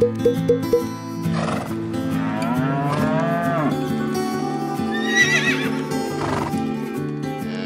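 A cow mooing: one long drawn-out call about two seconds in, over background music. A shorter high-pitched wavering animal call follows about five seconds in.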